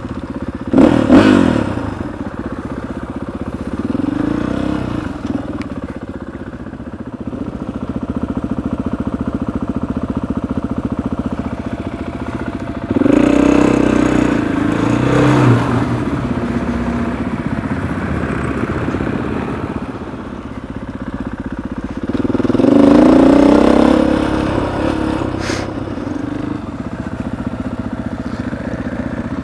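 Enduro dirt bike engine running under way, the throttle opening and closing. It revs up about a second in, with louder surges around the middle and again a few seconds later.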